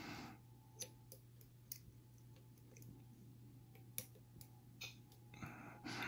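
Faint, scattered small clicks of a steel lock pick and tension tool working the pins in a padlock's keyway, over a low steady hum.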